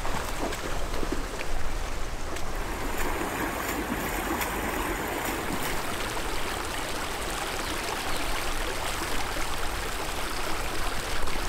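Steady rush of a shallow river flowing fast.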